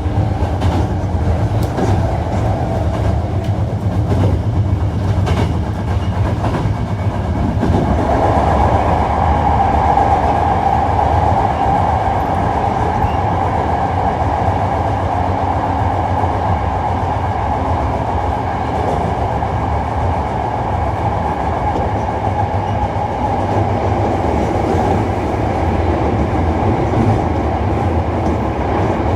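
Hankyu 1300 series electric train running between stations, heard from inside the car: a steady rumble of wheels and running gear, with a few rail-joint clicks in the first seconds. About eight seconds in, a steady higher drone comes in and holds.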